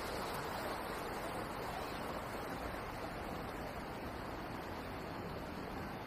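Steady rush of the Cheonggyecheon's running water, an even hiss with no distinct events, easing slightly toward the end.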